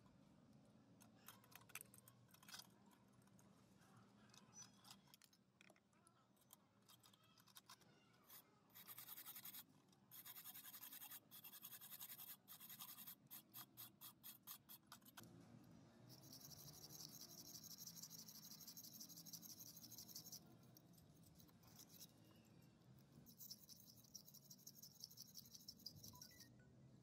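Faint scrubbing of a rusty metal part: quick, uneven back-and-forth strokes, followed by two steady hissing stretches of a few seconds each near the end.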